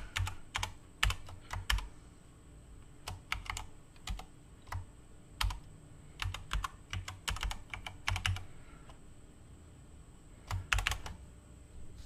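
Typing on a computer keyboard: irregular bursts of keystroke clicks, then a pause of about two seconds and a last quick flurry of keys near the end.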